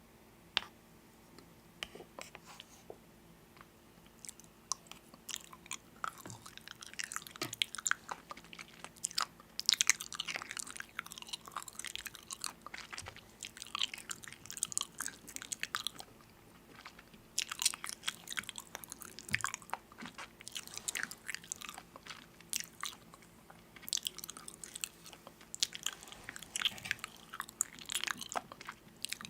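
Crunchy food being bitten and chewed close up: irregular crisp crunches and crackles, sparse at first and thick from about six seconds in, over a faint steady hum.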